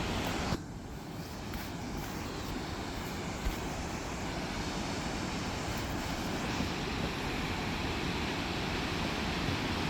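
Steady roar of a distant waterfall, even and unbroken. It dips slightly about half a second in, then slowly swells.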